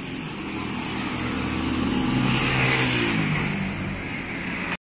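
A vehicle's engine growing louder and rising in pitch, then dropping in pitch about three seconds in as it passes by.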